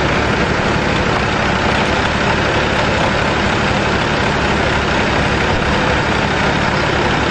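Two diesel tractor engines, a Ford 3600 and an Indo Farm 3055, idling steadily while chained back to back before a tug-of-war pull.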